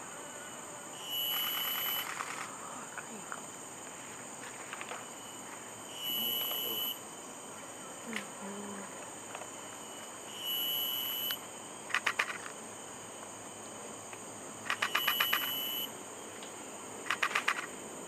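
Steady high-pitched insect drone of a tropical forest. Over it, a short, even whistled note comes four times, about every four to five seconds, and quick rattling trills come three times in the second half.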